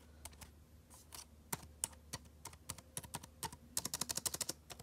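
Keys on the ALLDOCUBE iWork20's detachable keyboard being pressed to try the key travel: scattered single key clicks, then a quick run of typing about four seconds in.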